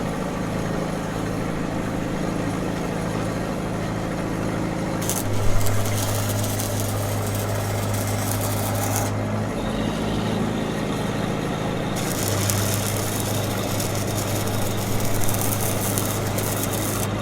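Engine of an engine-driven welding machine running steadily, with a hissing noise that comes and goes over it, from about five to nine seconds in and again from twelve seconds to near the end.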